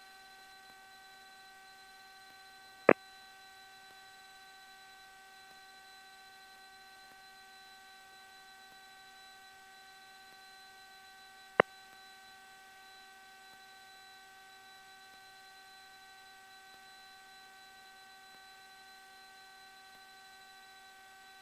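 Steady electrical hum on the aircraft's intercom audio line, several fixed tones held without change, broken by two brief sharp clicks about 3 seconds and 11 seconds in.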